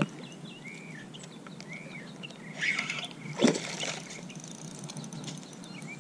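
Small birds chirping in short arched notes, then two brief rushes of splashing noise about two and a half and three and a half seconds in as a hooked peacock bass is swung out of the pond onto the grass bank.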